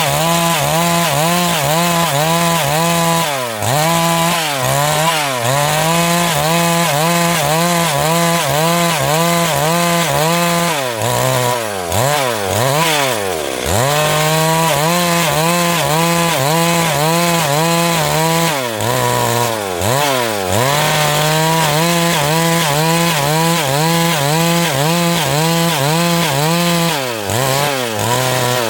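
Chainsaw ripping lengthwise through a log, running at high speed under load. The engine speed drops and climbs back up several times, with the longest dip near the middle.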